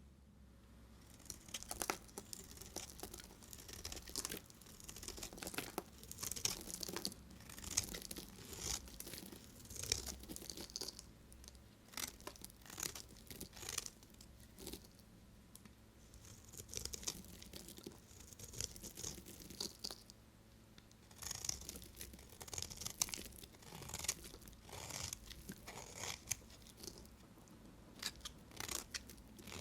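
A knife cutting through dry bar soap with crisp, crumbly crunching in repeated strokes a second or two apart, with a few short pauses between them.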